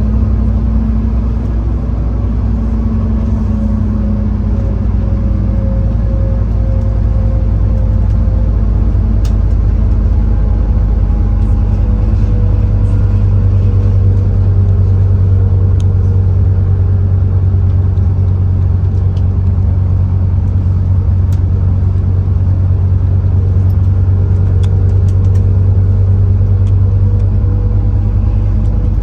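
Scania N230UD OmniCity bus's five-cylinder diesel engine running under way, heard from inside the cabin: a steady low drone with a few tones that drift slowly up and down in pitch.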